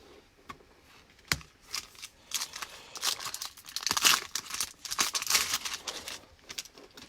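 A trading card pack wrapper being torn open and crinkled, with a sharp click about a second in, then a few seconds of crackly rustling.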